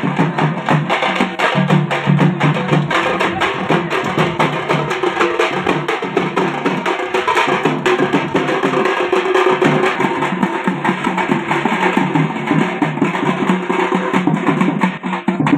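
Large hand-held frame drums (tappeta) beaten in a fast, dense, unbroken rhythm.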